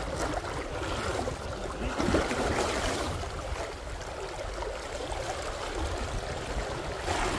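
River current running, a steady rush of flowing water, a little louder for a moment about two seconds in.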